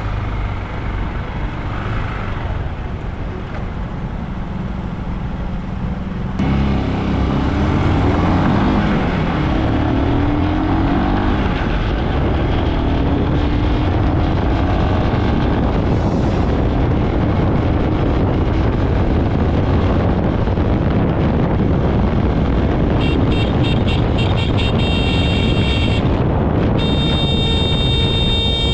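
Gatoma 200 motorbike engine and road noise while riding. About six seconds in it gets louder and climbs in pitch as the bike accelerates through the gears, then it runs on steadily at speed. Near the end a horn honks in short stretches.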